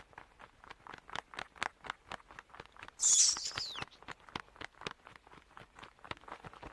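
Bat wings flapping in a quick steady rhythm, about five beats a second, with one loud, high-pitched bat squeal about three seconds in that ends by sliding down in pitch.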